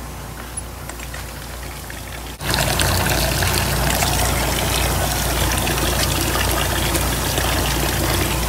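Water from a drum's tap pouring into a metal pot of freshly boiled eggs to cool them; the stream comes on suddenly and loudly about two seconds in and then runs steadily.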